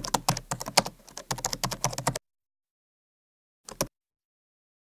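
Keyboard typing: a fast run of keystroke clicks for about two seconds, then a short burst of a few more keystrokes near the end.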